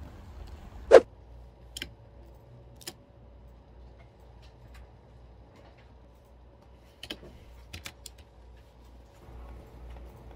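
Scattered sharp clicks and knocks over a faint steady hum; the loudest knock comes about a second in, then a few lighter clicks follow, with a small cluster near the end.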